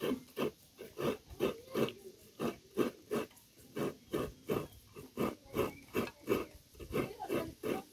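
Coconut flesh being grated by hand over an aluminium pot: even, repeated scraping strokes, about three a second.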